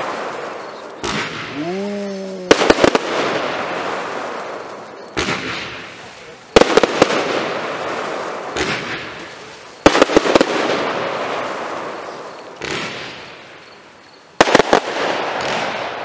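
A fireworks display firing volleys of aerial shells. Four times, a smaller bang is followed about a second and a half later by a louder cluster of sharp bangs. Each cluster trails off in a long fading crackle.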